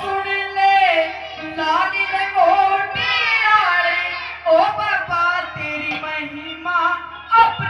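A high voice, likely a woman's, singing a wavering, ornamented melody over steady held accompanying tones, with a couple of sharp drum strokes.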